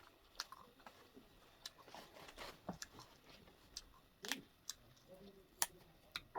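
Quiet eating sounds: chewing and biting with scattered small clicks, a few stronger ones about halfway through and near the end.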